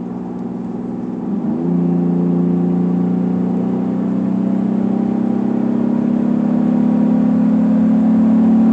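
2017 Chevy Colorado's engine with a K&N cold air intake accelerating hard, its intake note loud. About a second and a half in the pitch changes suddenly, then the engine drone grows louder with slowly rising pitch.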